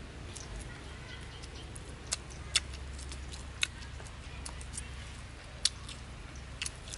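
Eating sounds: a handful of sharp, wet mouth clicks and lip smacks as someone chews grilled sausage, scattered irregularly over a steady low hum.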